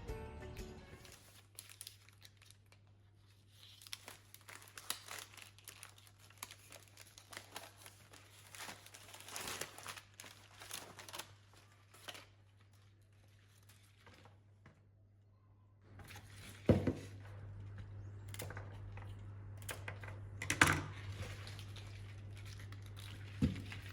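Crinkling and rustling of handled packaging, with a pause. Then a steady low hum starts, and three sharp knocks sound over it.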